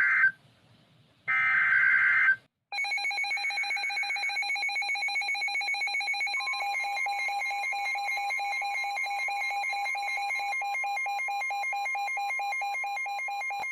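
NOAA Weather Radio alert sequence: the end of one screechy SAME digital header burst and one more burst about a second later, then the weather radio receiver's electronic alarm beeping rapidly. About six seconds in, the broadcast's steady 1050 Hz warning alarm tone joins it, signalling that a warning message follows.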